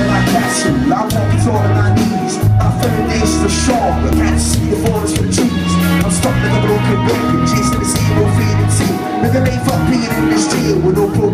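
Live rock band playing loud, with a heavy bass line and a steady drum beat.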